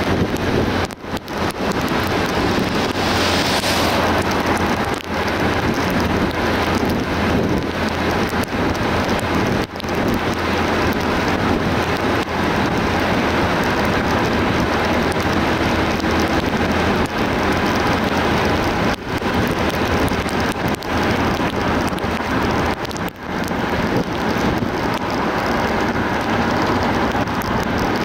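Car driving along a road: a steady hiss of tyre and road noise over a low hum, dipping briefly a few times.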